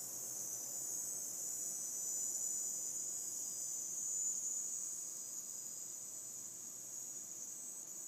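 Seasonic M12II 750W PC power supply giving off a steady, high-pitched hiss that swells a little and then fades slowly over the second half. It is an unexplained, intermittent noise that this PSU began making after about a week of use.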